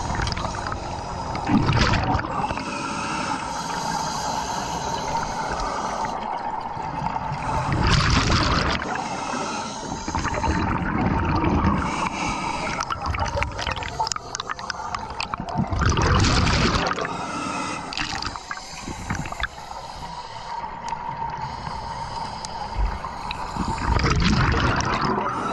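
Scuba regulator breathing underwater: loud rushes of exhaled bubbles about every eight seconds, with steady bubbling and gurgling between them.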